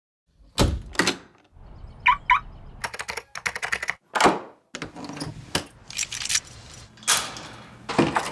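A string of sharp mechanical clicks and clunks from household latches and locks: cabinet doors closing, a brass slide bolt pushed home, a doorknob lock and deadbolt being turned. Two short squeaks come about two seconds in.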